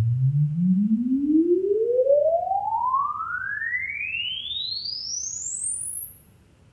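Room EQ Wizard sine-sweep measurement signal: a single pure tone rising steadily in pitch from the low bass up past the top of hearing, a little softer in its upper half, then cutting off abruptly near the end. It is the test sweep played to measure the left speaker's frequency response.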